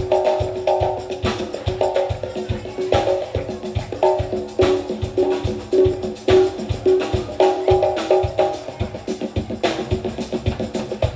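Live band music: a steady, fast percussion beat with wood-block and tambourine-like hits under sustained instrumental notes.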